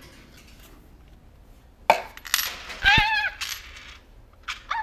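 Small metal clicks and clinks from handling the screws of a door deadbolt's thumb turn. A sharp click comes about two seconds in, and a short, high, wavering squeak with a thump about three seconds in.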